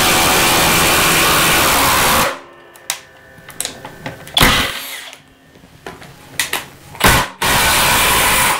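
Two cordless impact drivers, a Milwaukee M18 Fuel and a Flex 24V, hammering 4-inch lag screws into a wood beam, stopping abruptly a little over two seconds in. A few clicks and short knocks follow, then near the end one driver hammers again for about a second.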